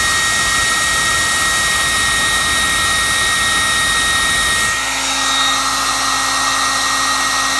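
Handheld hot-air blower running steadily: a high motor whine over a loud rush of air, with a lower hum joining about two-thirds of the way through. It is heat-setting the fresh paint on a crankbait.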